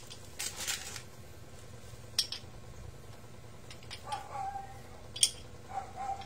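Metal motorcycle drum brake shoes and their springs being handled: a short scrape about half a second in, then sharp metallic clinks about two seconds in and about five seconds in, the second the loudest.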